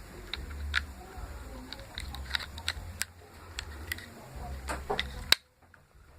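Irregular clicks and taps of hard plastic parts being handled, over a low rumble. One sharp, loud click comes about five seconds in, and the sound cuts out right after it.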